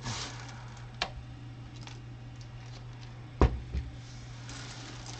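Plastic Lego pieces and cup being handled: light rustling with a sharp click about a second in, and a louder knock followed by a smaller one about three and a half seconds in, over a steady low hum.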